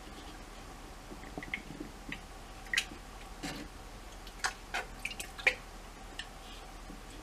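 Water dripping and plopping in a small tank as a rubber squirt toy is squeezed and moved underwater and at the surface to fill it. The sound is faint, with scattered short drips and plips, the loudest a little past halfway.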